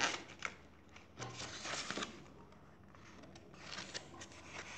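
Paper pages of a picture book being turned and handled, rustling softly in three short spells.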